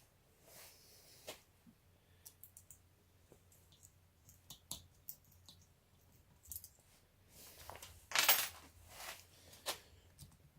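Small metal tools handled against an ABS padlock: scattered light clicks and taps, with a louder scrape lasting about half a second around eight seconds in and a shorter one a second later.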